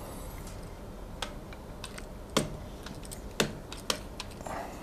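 A few sharp, irregular taps of a marker tip against a whiteboard as lines and a letter are drawn, the loudest about halfway through and a second later.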